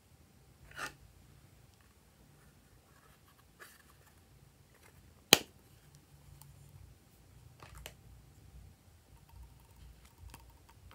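Plastic clicks from handling a plastic lip gloss compact: a soft click about a second in, then one sharp snap about halfway through as the compact's lid is opened, and a few faint clicks and taps later as a plastic spatula works in the gloss.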